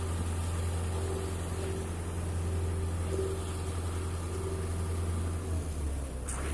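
Diesel engine of a concrete mixer truck running steadily at a low idle, with a faint on-and-off whine above it. A short hiss near the end.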